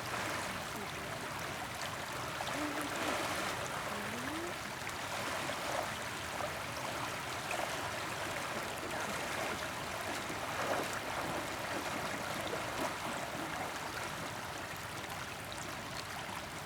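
River water rushing steadily over its bed, a continuous even wash of flowing current.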